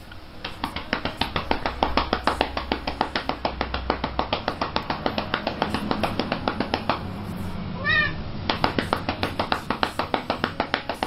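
Hands patting a calico cat's back near the tail in a fast, even rhythm, about four pats a second. The patting pauses briefly, the cat gives one short meow about eight seconds in, and then the patting starts again.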